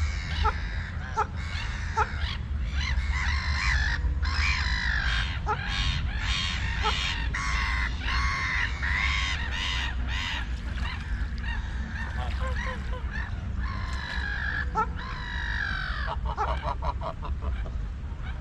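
Waterfowl on a pond calling over and over in quick runs of calls, over a steady low rumble.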